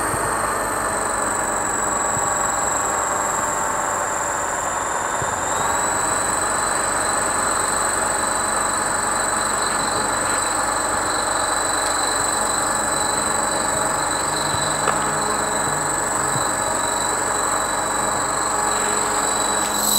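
Align T-REX 600 ESP electric RC helicopter running with its rotor spinning: a steady high whine from the motor and drive gears over the rush of the rotor blades. The whine steps up slightly in pitch about five and a half seconds in.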